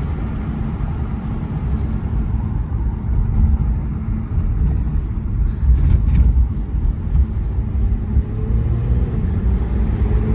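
Mercedes-AMG E43's twin-turbo V6 engine and exhaust running under way, heard from inside the cabin as a steady low rumble mixed with road noise, swelling a little a few seconds in. A short click about six seconds in.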